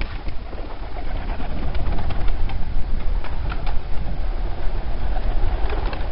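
A flock of fancy pigeons flying down and landing, a flurry of wingbeats and wing claps, over a steady low rumble.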